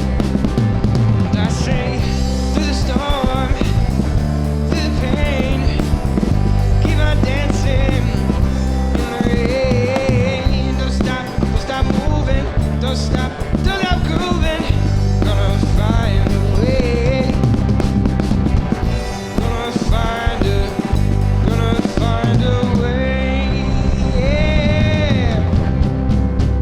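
Live rock/soul band playing an instrumental passage: drums and bass under a lead melody line that bends and wavers in pitch.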